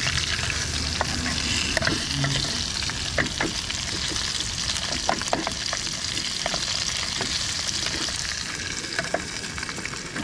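Redfin perch frying in oil in a metal mess tin, sizzling steadily, with light clinks of a spoon against the tin as the hot oil is spooned over the fish.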